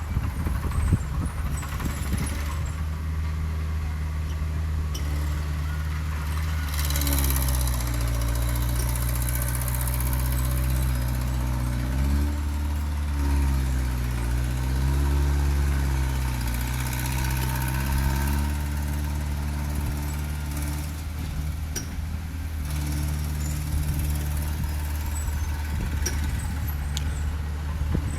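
Heavy earthmoving machine's diesel engine running. Its engine speed drops and picks up again twice in the middle, then it settles back to a steady run.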